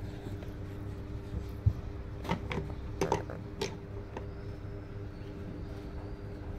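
Steady low mechanical hum, with a few light clicks and taps between about two and four seconds in.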